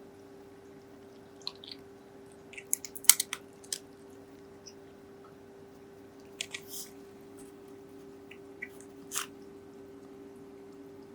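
A cat crunching dry kibble: scattered crisp crunches in a few short clusters, over a faint steady hum.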